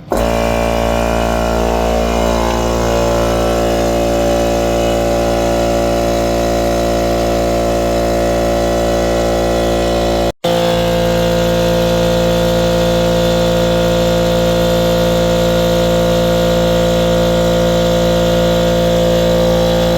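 Portable air compressor running steadily with a loud motor hum, inflating the freshly mounted electric unicycle tire to seat its bead. It breaks off for an instant about halfway through, then carries on unchanged.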